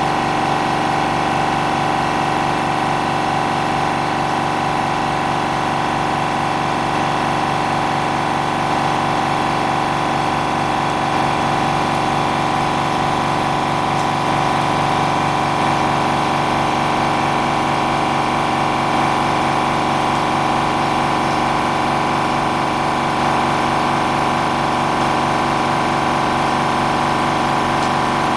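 An electric workshop machine running steadily, a constant hum made of several steady tones.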